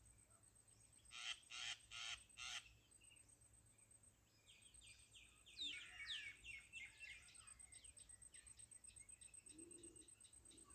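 Faint bird calls: four short calls about 0.4 s apart a little over a second in, then, from about four and a half seconds on, a long run of quick chirps and twitters with a few falling notes.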